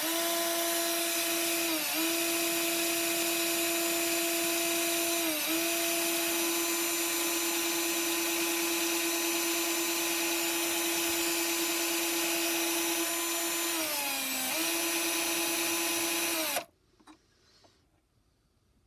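Cordless drill spinning an old resistor against a flat file, grinding off the coating to expose the gold-plated end cap. The motor holds a steady pitch with a rasping hiss over it, and its pitch sags briefly a few times as the resistor is pressed harder on the file. It stops suddenly near the end.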